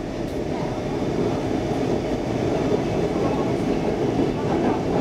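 Stockholm Metro C14 subway car running at speed through a tunnel, heard from inside the car: a steady running noise of wheels on rail, getting slightly louder as it goes.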